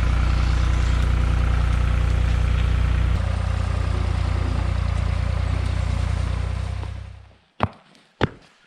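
A large engine idling steadily, then dying away about seven seconds in, followed by a few sharp knocks near the end.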